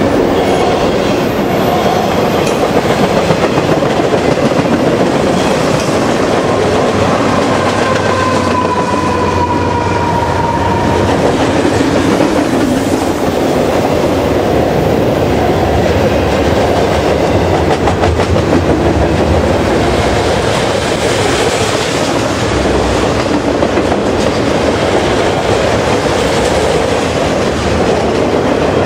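Canadian Pacific double-stack container freight train rolling past at speed: a loud, steady rumble of steel wheels on rail with the clickety-clack of wheels over the rail joints.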